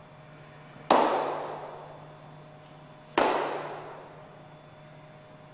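Two sharp knocks on a wooden lectern, struck by hand, about two seconds apart, each ringing out in a large hall's reverberation.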